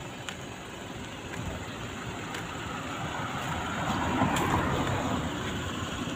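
A car passing close by: a steady road noise that swells to a peak about four seconds in and then eases off.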